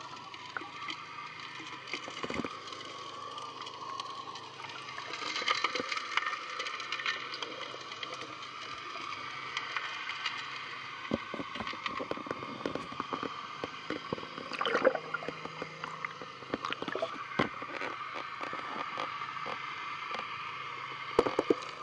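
Underwater sound near a working suction gold dredge: a steady hum and rush of water with irregular clicks and knocks of gravel and stones, the knocks sharper and more frequent in the second half.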